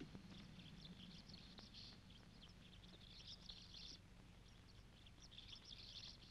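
Faint birds chirping in three short spells, over a low steady hum.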